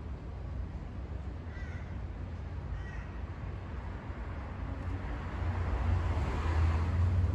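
Two short bird calls about a second apart, over a steady low rumble that grows louder near the end.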